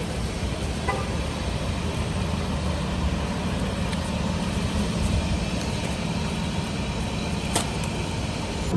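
Steady city traffic noise: a continuous low rumble of passing vehicles, with a couple of faint ticks.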